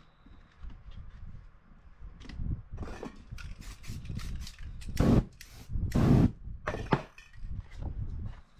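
Aerosol spray paint can hissing in a series of short bursts, the two longest and loudest about five and six seconds in.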